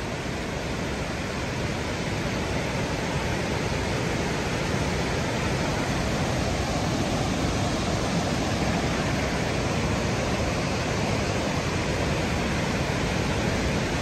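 A large waterfall rushing steadily, falling water and spray making an even, unbroken noise.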